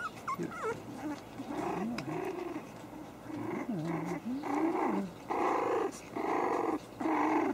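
Havanese puppies squeaking at first, then a run of short play growls that get louder in the second half.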